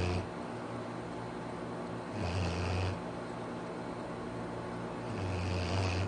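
A sleeping Labrador retriever snoring, one low snore about every three seconds: the end of one at the start, then two more.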